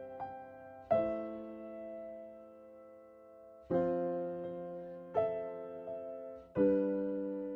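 Slow, gentle piano background music: soft chords struck every second or two and left to ring and fade.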